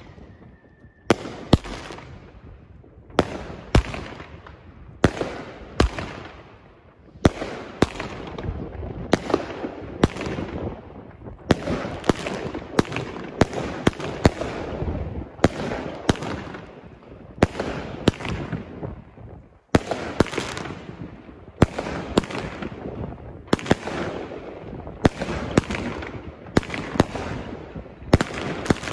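Weco 'Blow Out' 27-shot firework battery firing: a sharp report about every second, each followed by a fading crackle as the effects burst.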